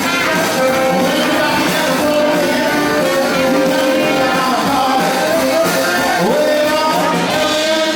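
Band playing 1950s-style rock and roll, with a singer.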